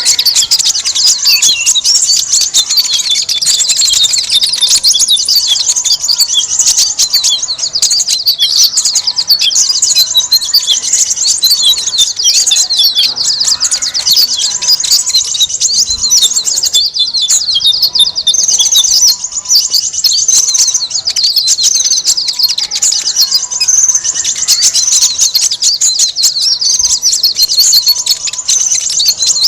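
Dense, noisy chorus of many small songbirds, with rapid high-pitched chirps and trills overlapping without pause. This is a bird-lure recording of 'noisy small birds', played to attract konin (kolibri ninja).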